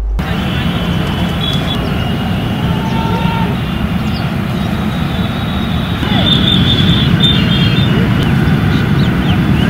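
Steady low outdoor rumble of the kind that traffic makes, with faint short high chirps scattered over it; it gets louder about six seconds in.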